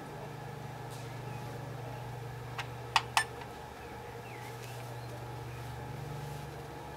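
SkyRC MC3000 battery charger's cooling fan humming steadily while the charger discharges an Eneloop cell. Three sharp clicks come a little under three seconds in.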